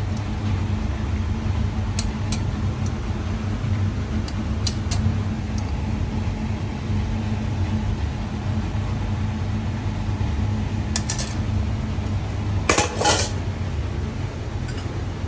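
Glass cups clinking lightly against each other and a metal tray, with a few scattered clicks and a louder short clatter about 13 seconds in. A steady low machine hum runs underneath, typical of commercial kitchen extraction or refrigeration.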